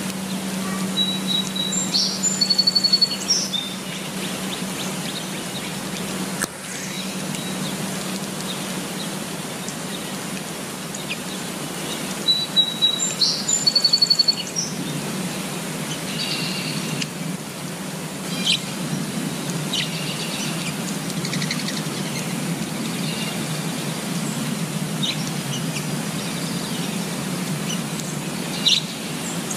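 Steady rain falling on leaves, with songbirds chirping over it: a short run of twittering calls about two seconds in and again about twelve seconds in, then scattered single chirps.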